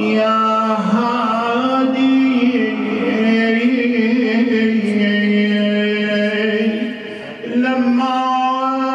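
A man's solo voice chanting an Arabic elegiac poem in long, drawn-out, ornamented notes, with a brief breath about seven seconds in before the next phrase.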